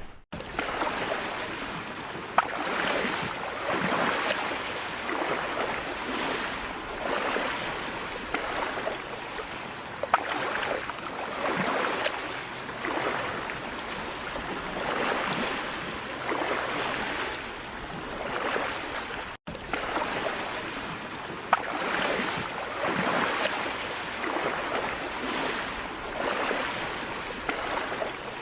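Floodwater rushing and surging, a steady noise that swells and eases about every two seconds.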